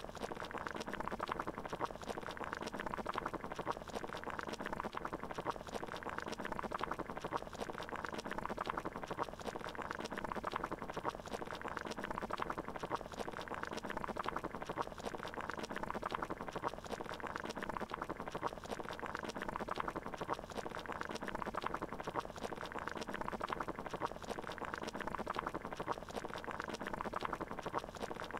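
Water boiling in a pot: a steady, continuous bubbling.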